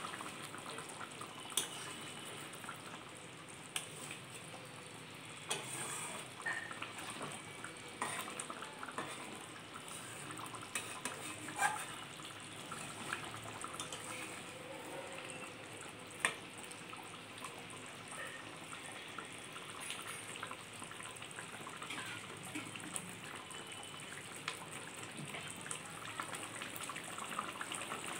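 Thick mustard gravy with hilsa simmering and sizzling in a metal kadai, reduced until the oil has separated. A metal spatula stirs it, with occasional sharp knocks and scrapes against the pan.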